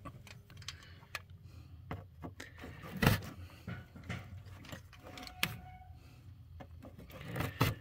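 Scattered metallic clinks and knocks from hand tools and engine parts being handled, with one louder knock about three seconds in and a brief metallic ring a couple of seconds later.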